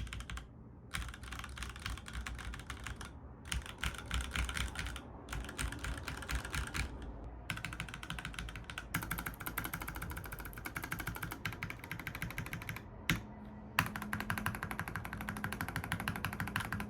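Typing on a Razer BlackWidow Lite mechanical keyboard with Razer Orange tactile switches: fast, continuous key clicks, broken by a few brief pauses.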